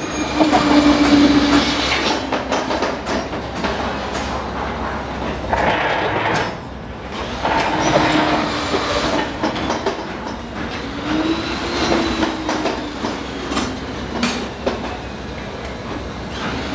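Electric rebar bending machine at work: its motor and gearing hum in three spells, near the start, about eight seconds in and about eleven seconds in. Steel reinforcing bars clank and scrape throughout.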